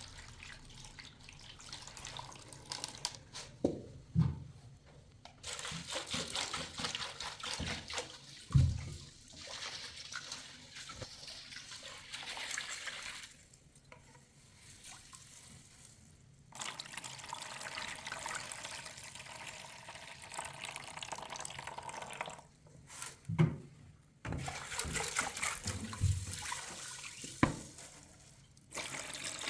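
Water running from a tap in stretches, stopping and starting abruptly several times, with a few dull thumps, the loudest about eight seconds in.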